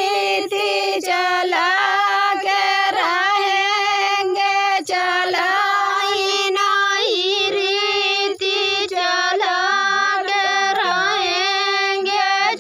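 High women's voices singing a chohkra, a rural wedding folk song from the Sandila area, over a steady held tone.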